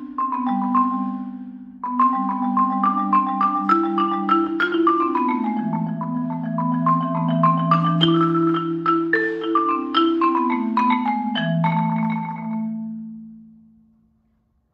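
Yamaha marimba played with mallets: a melody of struck notes over long-held low notes that flutter as they are rolled, with a short break about two seconds in. The piece ends on a final chord that rings and fades away near the end.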